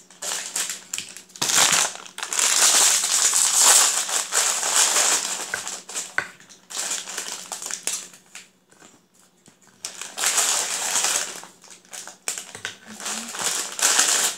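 Shiny foil biscuit packet crinkling as it is handled and biscuits are pulled out of it, in long spells with a lull of about two seconds near the middle.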